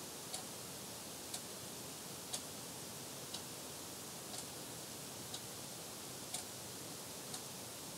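Faint, even ticking of a clock, once a second, over a steady hiss.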